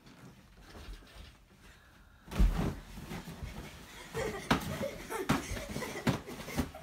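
Children roughhousing on beds and a beanbag: after a quiet start, a heavy thump about two seconds in, then scattered bumps and knocks mixed with snatches of children's voices and laughter.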